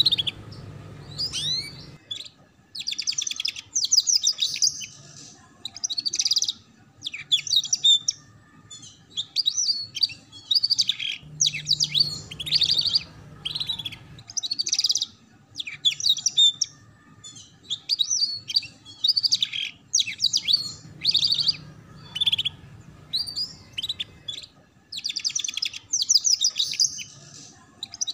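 Domestic canary singing a rapid chattering 'ngeriwik' song: a steady run of short, fast, high-pitched trilled phrases separated by brief pauses.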